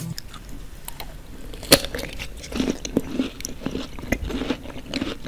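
A person biting into and chewing fresh lychees: wet, irregular mouth clicks and smacks, with one sharper, louder click a little under two seconds in.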